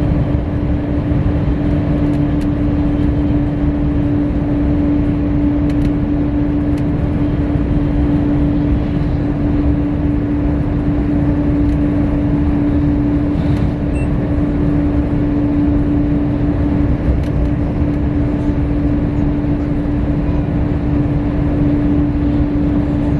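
Steady rumble and running noise heard inside the cabin of an Al Boraq high-speed train travelling along the line, with a constant hum at one pitch over it.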